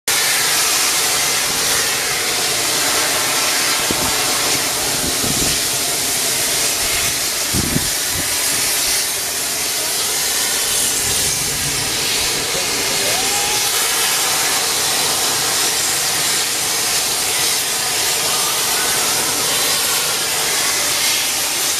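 LMS Jubilee class steam locomotive 45596 "Bahamas" releasing steam in a loud, steady hiss.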